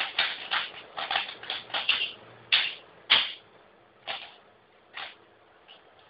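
Rubik's cube being turned by hand: the plastic layers clack in a quick flurry of turns, then a few single turns follow about a second apart, the loudest about three seconds in.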